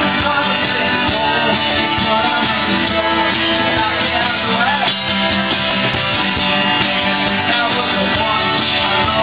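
Live rock music played on strummed acoustic guitars, with a man singing over them.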